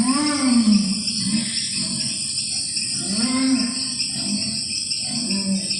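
Deep, drawn-out calls from an unseen forest animal, each about a second long and arching up then down in pitch, several in a row. A steady high insect buzz runs underneath.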